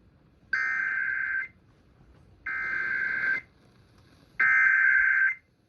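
Emergency Alert System SAME header: three bursts of buzzing digital data tones, each about a second long and about a second apart, the third one louder. It is the coded header that opens an EAS alert, here ahead of a severe thunderstorm warning.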